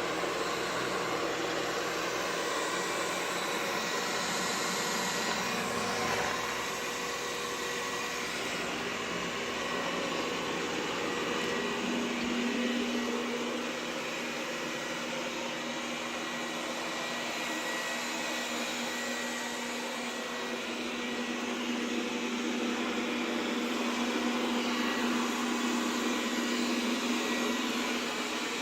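Xiaomi robot vacuum running with a steady whir of suction and brushes. A low hum comes in about twelve seconds in and holds.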